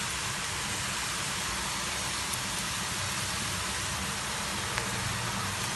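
Namak paray (salted dough pieces) deep-frying in hot oil: a steady sizzle, with a faint pop or two.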